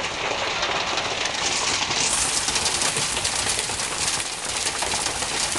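Hail pelting a wooden deck and patio furniture: a dense, steady rattle of countless small impacts, growing sharper and brighter about two seconds in.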